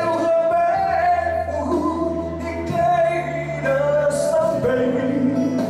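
Man singing a Chinese song through a handheld microphone over backing music, holding long sustained notes.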